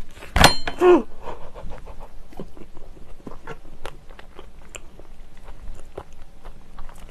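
A short startled exclamation, a gasp of "heok!", about half a second in as a strawberry drops off the cream-topped bread. After it comes close-miked chewing with small wet mouth clicks, and near the end a metal fork taps on a slate serving board.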